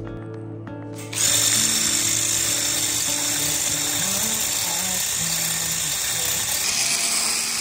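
Electric hand whisk switched on about a second in, its small motor whirring steadily as the beater whips egg white in a glass bowl.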